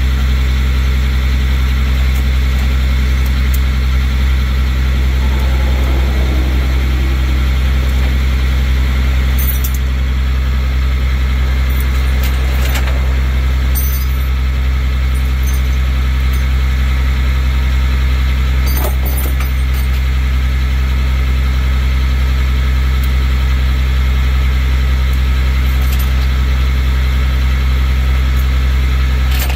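Rollback tow truck's engine idling steadily, with a few short clicks as the wheel tie-down straps are handled.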